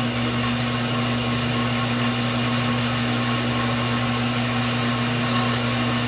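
Goulds well pump motor running with a steady electric hum as it builds water pressure toward the new pressure switch's 60 psi cut-out.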